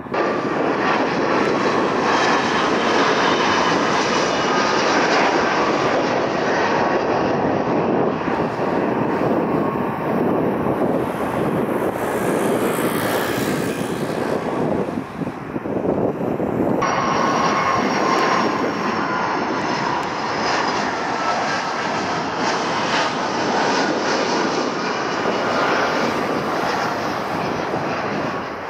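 Jet airliners passing on final approach, an Airbus A320 and Boeing 757s, their engines giving a loud rumble with a high whine above it. About 17 seconds in the sound switches abruptly to another aircraft, with a new whine.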